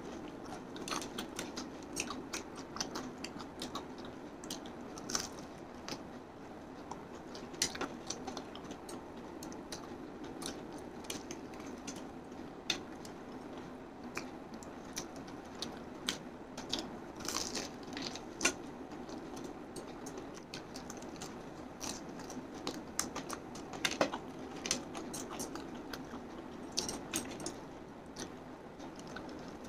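A person biting and chewing KFC Hot & Crispy fried chicken, with many scattered short crunches and mouth clicks over a steady low background noise.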